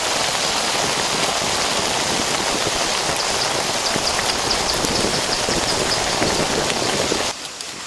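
Seafood broth boiling hard in a pot over a wood fire: a steady bubbling hiss that cuts off suddenly near the end.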